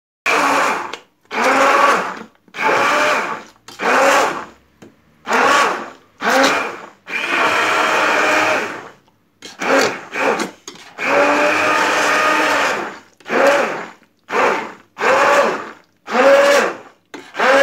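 Hand-held stick blender puréeing soft cooked pumpkin in a stainless steel pot, switched on and off in about fifteen short bursts of half a second to two seconds each, its motor pitch climbing at every start.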